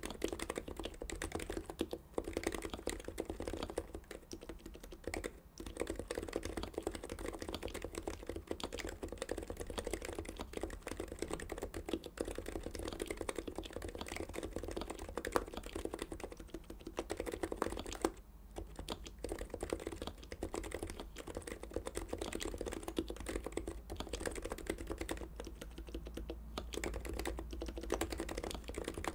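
Continuous typing on a Topre-style Heavy-9 keyboard fitted with Deskey sliders and BKE-style rubber domes, GMK keycaps over a stainless steel plate: a steady stream of muted keystrokes. There is a short pause about eighteen seconds in.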